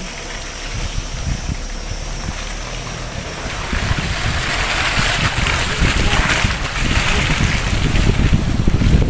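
Car driving along a rough track: a low rumble full of irregular knocks and bumps under a rushing wind and tyre noise that grows louder about four seconds in.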